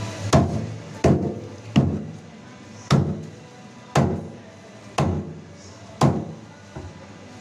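A large knife chopping a whole bream into steaks on a wooden chopping block: seven hard chops, roughly one a second, each going through the fish and striking the wood, with a lighter knock near the end.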